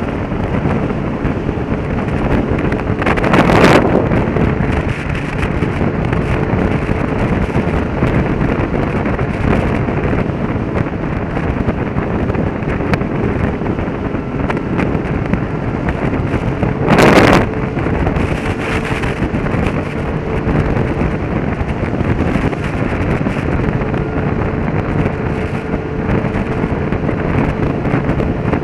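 Wind noise on the microphone and road noise from a motorcycle on the move, with a faint steady engine hum under it. There are two short, loud rushes of noise, one about three and a half seconds in and one about seventeen seconds in.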